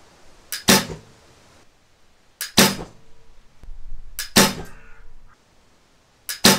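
Four shots from an Olympic-style recurve bow with a Hoyt GMX 3 riser and precision stainless tiller bolts, about two seconds apart. Each shot is a light click followed a fraction of a second later by the loud snap of the string's release.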